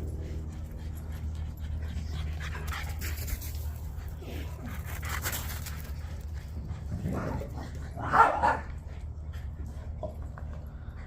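A dog panting in breathy bursts over a steady low hum, with a short, louder dog vocal sound about eight seconds in.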